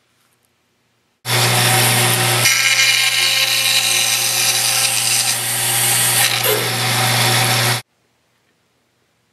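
Band saw running and cutting through hardwood: a steady motor hum under a dense hiss of the blade in the wood. It starts suddenly about a second in and stops suddenly near the end.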